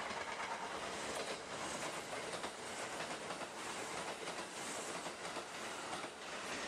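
Kintetsu 12200 series limited express electric train passing at speed close by: a steady rolling roar with the wheels clattering over the track.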